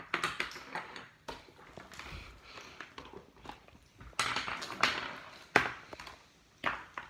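Irregular plastic knocks, clunks and scuffs as unplugged desk fans are picked up and moved on a wooden floor, mixed with rubbing from the handheld phone. The louder knocks come about four seconds in and again near the end.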